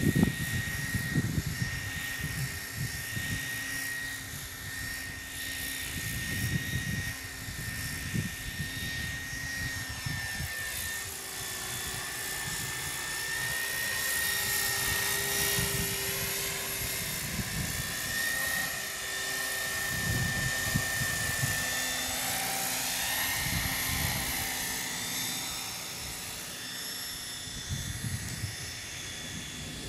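Gaui Hurricane 550 electric RC helicopter in flight: a steady high whine from its motor and drive gears with rotor blade noise, wavering and gliding in pitch as it manoeuvres.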